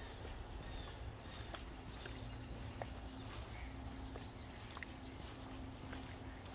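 Faint woodland ambience: a few thin, high bird chirps in the first half over a steady low rumble, with a faint low hum coming and going and scattered small clicks.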